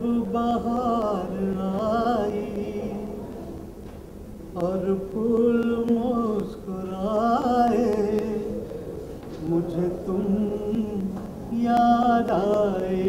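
A man singing without accompaniment in three long phrases of drawn-out, wavering notes, held like a melodic vocal introduction with no clear words.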